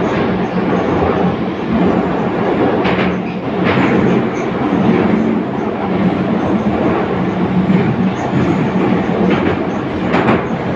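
Interior noise of an 81-722.1 metro car running between stations: a steady rumble and wheel noise with a low hum under it. The wheels clack over rail joints a few times.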